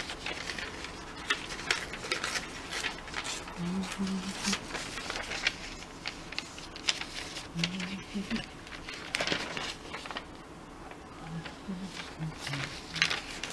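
Sheets of paper rustling and crinkling as they are handled on a craft desk, with many light taps and clicks. A voice murmurs briefly a few times.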